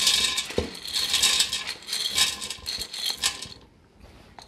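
Dried yellow corn kernels poured from a bowl into a stainless steel pot onto other ingredients: a dense clatter of many small hits on the metal and on each other, which stops about three and a half seconds in.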